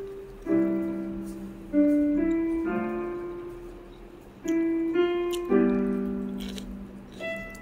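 Background piano music: slow, gentle chords and single notes, each struck and left to fade before the next.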